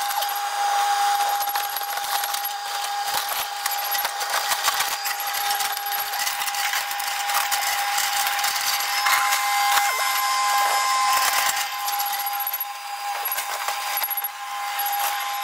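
Takeuchi TB290 compact excavator tearing down a wood-framed garage: a steady machine whine under continual cracking and splintering of timber and the crash of falling debris.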